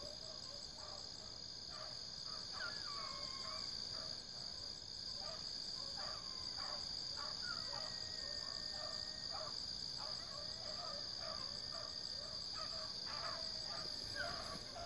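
A pack of hounds baying and barking in the distance while running a trail, their repeated calls coming every second or so, over a steady high-pitched chorus of night insects such as crickets.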